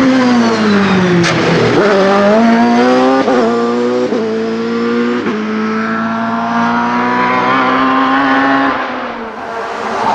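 LobArt LA01 hillclimb sports car's Mugen racing engine under hard acceleration: the note falls as the car slows for a bend, then climbs through several quick upshifts, each a sudden drop in pitch, into a long pull in a high gear, and falls away as the throttle lifts near the end.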